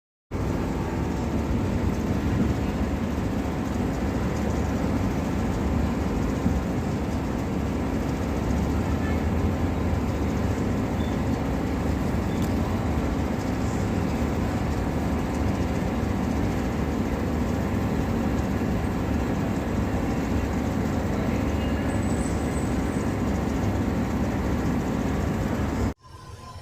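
Portable gas brazing torch burning with a steady roar, heating a copper refrigerant pipe to braze a leak. It starts abruptly and cuts off suddenly near the end.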